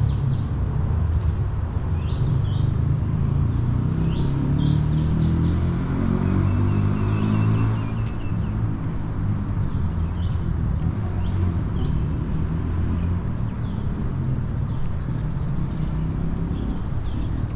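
Birds chirping in quick clusters of short, sharp high notes, repeated every second or two. Under them runs a steady low rumble like distant traffic.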